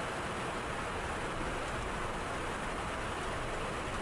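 Steady rushing cockpit noise of a Cessna Citation business jet in flight: airflow over the airframe and windshield mixed with engine noise, even and unchanging.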